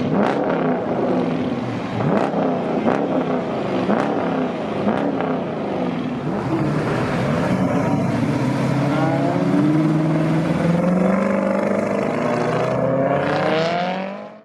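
Supercar engines revving, their pitch rising and falling again and again, with a few sharp pops. Then an engine's pitch climbs steadily as it accelerates, and the sound cuts off suddenly near the end.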